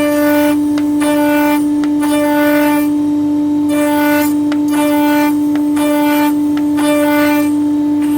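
Background music: a steady held drone note with a repeating, pulsing melodic figure about once a second.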